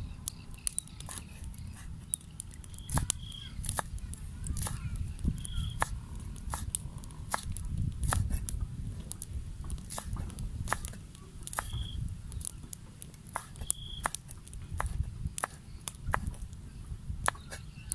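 A meat cleaver chopping chili peppers and herbs on a cutting board: a steady run of sharp knocks, over a low rumble. A bird gives a short high chirp four times.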